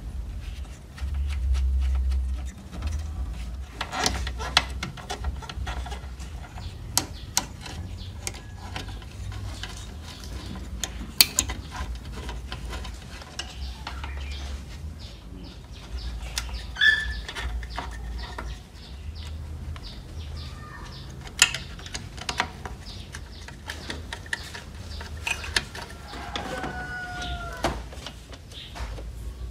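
Hands fitting parts into a disc player's sheet-steel chassis: irregular clicks and knocks as components are pressed onto the power board and the disc-loading mechanism is seated, over a low rumble.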